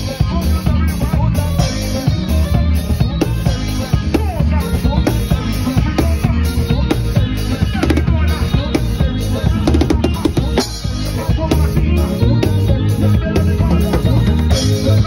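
Live band playing loudly, with a deep electric bass line and a steady drum-kit beat.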